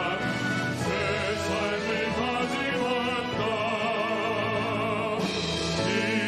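Male voices singing in operatic style, holding long notes with wide vibrato over instrumental accompaniment.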